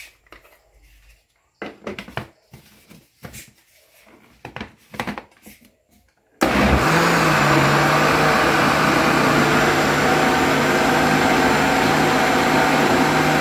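Electric kitchen blender switched on about six seconds in and running steadily at one speed, churning corn cake batter after the baking powder has been added.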